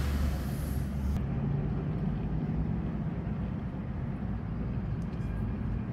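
Coach engines idling, a steady low rumble, with a short hiss during the first second.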